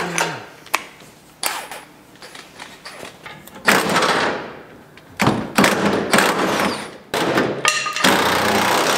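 Knocks and thuds of hand work on the underside of a pickup truck's fuel-system parts. Later come three bursts of loud rushing noise, about four, five and seven seconds in.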